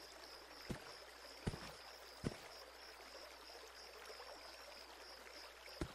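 Quiet night ambience: a faint chirping of night creatures that pulses several times a second without a break. A few soft taps come about three-quarters of a second apart in the first half, and one more near the end.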